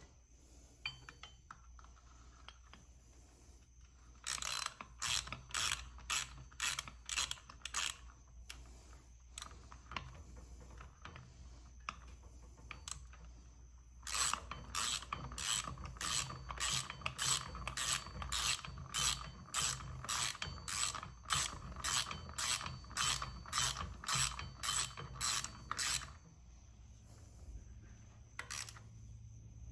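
Hand ratchet clicking as it tightens the axle-retainer T-bolts on the axle flange. There is a short run of clicks about four seconds in, then a longer run of about twelve seconds, at about two to three clicks a second.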